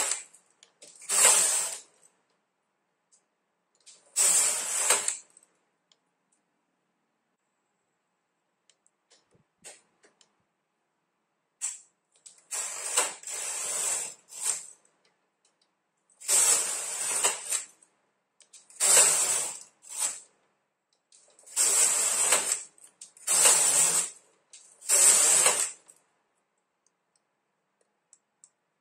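Silver Reed SK830 knitting machine carriage pushed back and forth across the needle bed, each pass a rattling sweep of about a second. There are a few passes, then a pause of several seconds, then a run of six or seven passes close together.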